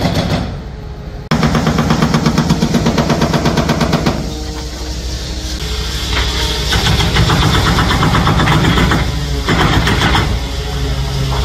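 Excavator-mounted hydraulic breaker hammering concrete in a rapid, even run of blows, over the excavator's diesel engine running. The hammering starts about a second in, stops about four seconds in leaving the engine, then comes back in spells.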